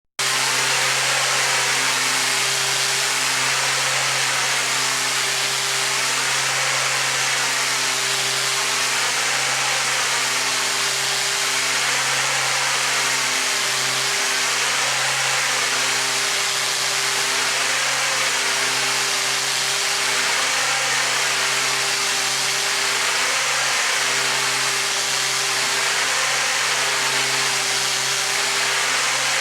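Combijet RJE-1000 hydroblasting robot's high-pressure water jets blasting a ship's hull: a loud, steady hiss of spray over a steady hum, with a slow wavering that comes round about every two seconds.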